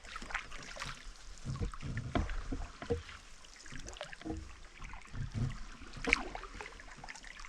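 Canoe being paddled on calm water: paddle strokes dipping and pulling, with irregular soft thumps and splashes.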